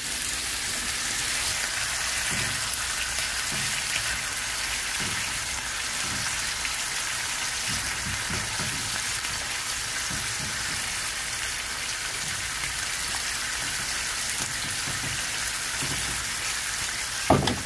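Thick slabs of pork belly sizzling in a frying pan, a steady crackle of spattering fat. There are a few soft knocks and one sharp clack near the end.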